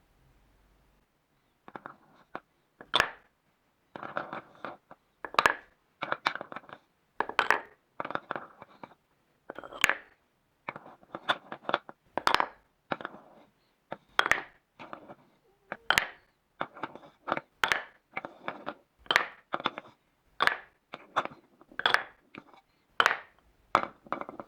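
Wooden balls knocking and clattering down a HABA wooden marble run. Sharp clacks and short rattles come about one or two a second, beginning about two seconds in.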